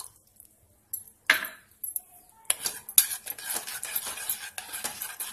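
Metal spoon knocking, then clinking and scraping against the pan as it stirs oats and milk. Two knocks come about a second in, then steady stirring starts about halfway through.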